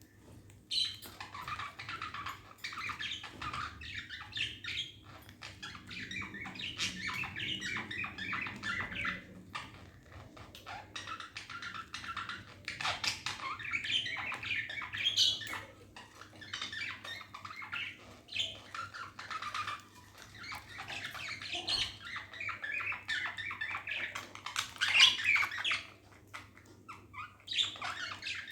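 Budgies (pet budgerigars) chirping and chattering almost without pause, a dense warble of short squawks and tweets.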